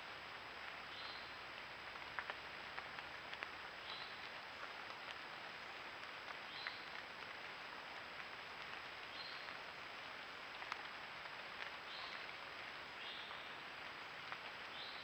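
Faint outdoor evening ambience picked up by a trail camera: a steady hiss with a short high chirp every two or three seconds and a few soft clicks.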